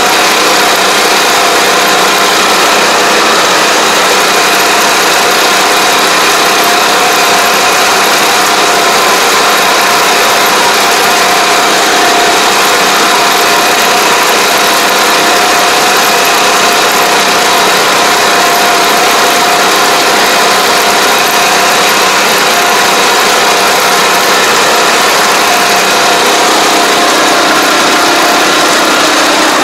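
Small engine of a tracked tobacco-field machine running steadily at constant speed, loud and close, with a steady even tone throughout.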